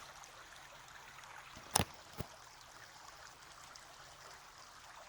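Two sharp knocks from the camera being handled and adjusted, a loud one nearly two seconds in and a lighter one just after, over a steady rushing background hiss.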